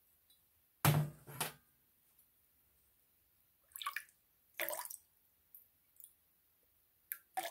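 Water in a large container being splashed with a handheld object: four short, separate splashes, the first and loudest about a second in.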